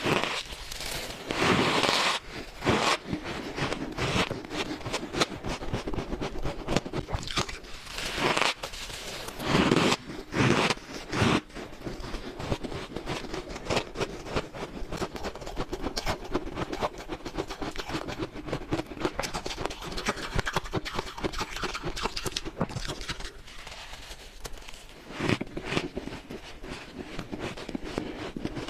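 Close-miked crunching and chewing of freezer frost ice taken in big bites, crunchy and squeaky. Loud bites come in the first dozen seconds and again about 25 seconds in, with a dense run of small crunches between them.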